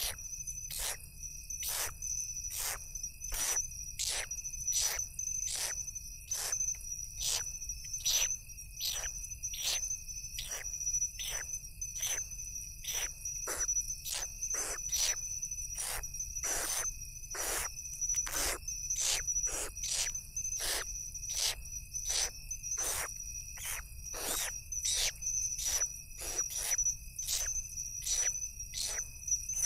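Eastern grass owl chicks giving harsh, hissing begging calls, repeated steadily about three every two seconds while being fed. Under them runs a steady chorus of crickets.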